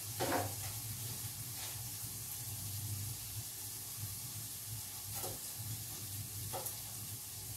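Mushrooms frying in a pan, with a steady sizzle, and a few light knife taps on a plastic cutting board.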